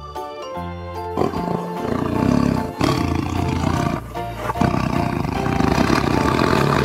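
Bengal tiger roaring and growling in three long stretches over background music, starting about a second in.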